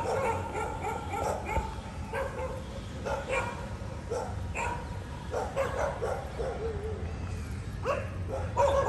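A dog barking: a string of short barks at irregular intervals.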